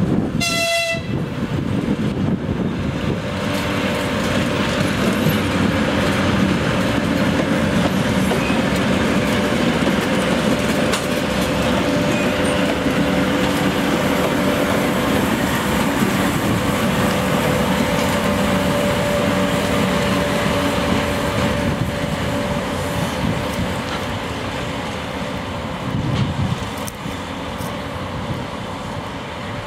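Two-section 2TE116 diesel locomotive passing close by, sounding a short high horn blast about half a second in. After that its diesel engines run steadily, a held whine over a low rumble that eases a little near the end.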